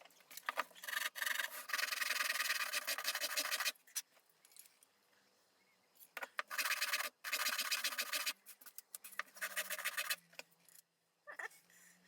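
Hand-tool rasping on knife-handle parts: scraping in several runs of a few seconds each, with short pauses between.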